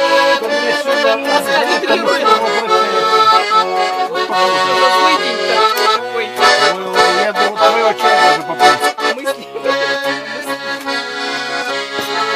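Instrumental music, a melody over held chords: the opening bars of a song.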